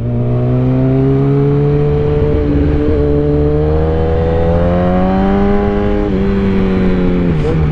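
Motorcycle engine with a loud aftermarket exhaust, heard from on the bike, pulling in second gear with its pitch slowly rising, then dropping as the throttle eases off about six seconds in and dipping briefly near the end.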